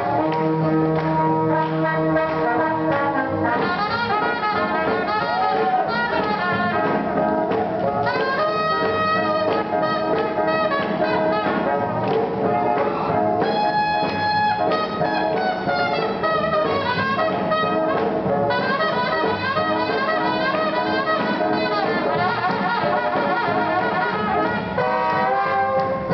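Live big band playing swing jazz, the trumpets and trombones up front, with a long held brass chord about halfway through.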